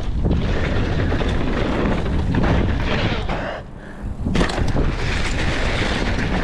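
Mountain bike riding over rough trail: wind buffeting the camera microphone, with the rattle and knocks of the bike throughout. There is a brief lull a little past the middle, followed by a few sharp knocks.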